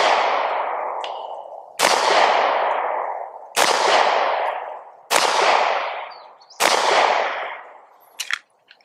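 Taurus GX4 Carry 9mm pistol fired four times at a steady pace, about one and a half seconds apart, each shot trailing off in a long echo; the tail of another shot fills the very start. A few light clicks near the end.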